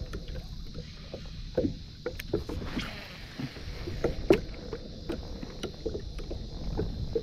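Small waves lapping and slapping against the hull of a pedal-drive fishing kayak in irregular knocks, the loudest about four seconds in, over a steady low wind rumble on the microphone.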